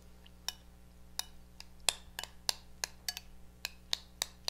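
A metal utensil clinking against a small glass bowl while diced avocado is stirred with lemon juice and salt: light, irregular clinks, about three a second.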